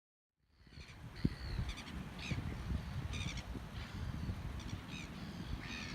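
Birds calling: a string of short, harsh calls over a steady low rumble.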